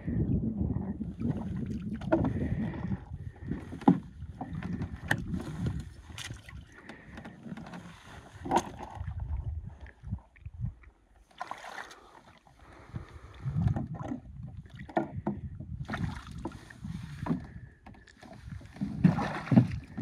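Wading in rubber boots through shallow, stony water while hauling a loaded canoe: irregular splashing and sloshing, with sharp knocks and scrapes as the canoe and paddle meet the rocks.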